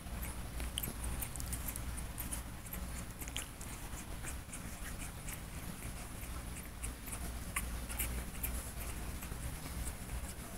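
Two-week-old French bulldog puppies shuffling and scrabbling on a fabric couch cover: many small scratchy ticks of paws and claws on cloth, over a steady low hum.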